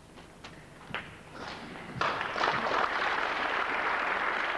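A few sharp clicks of snooker balls, then audience applause swelling up about two seconds in and running on loud and steady.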